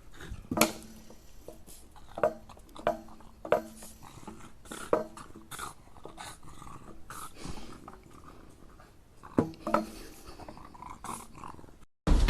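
A dog making short, pitched vocal sounds, mostly soft. Several louder calls stand out in the first few seconds, and two more come close together near the end.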